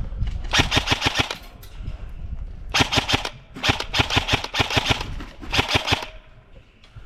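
Airsoft gun firing on full auto in about five short rapid bursts, each around half a second long.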